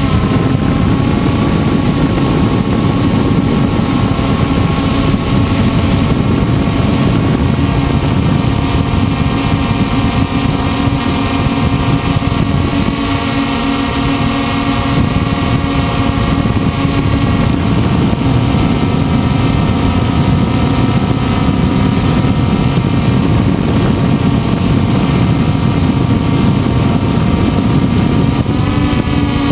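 Electric motors and propellers of a multirotor hexacopter, heard from its on-board camera, running with a steady whine that shifts in pitch near the end as the motor speed changes.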